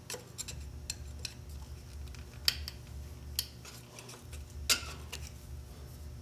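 Scattered small metallic clicks and clinks of hand and tool working at a rusted steel C-clip on an old Sears contractor table saw's arbor housing, with sharper clicks about two and a half, three and a half and nearly five seconds in.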